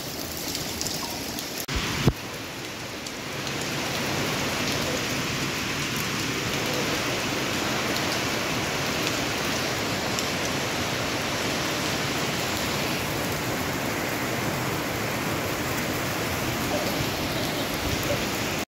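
Steady rain-like rush of water, with two knocks about two seconds in. It grows louder about three seconds in, holds steady, and cuts off suddenly near the end.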